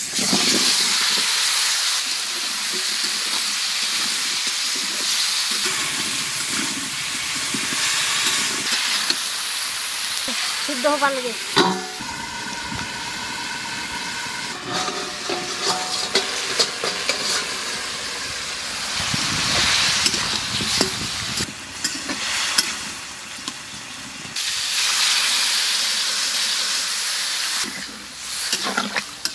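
Cauliflower florets and potato pieces tipped into hot mustard oil in a kadai: a sudden loud sizzle that carries on as a steady frying hiss.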